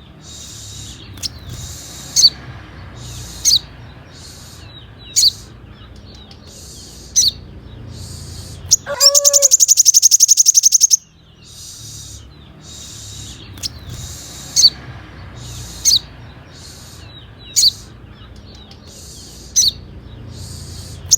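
Sogon bird song: high-pitched chirping phrases and sharp single notes every second or two. About nine seconds in comes a loud, rapid, buzzy trill lasting about two seconds, then the chirping resumes.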